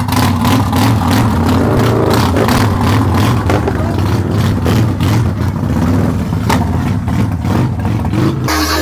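Harley-Davidson bagger's V-twin engine running loudly and being revved unevenly as the bike rolls out.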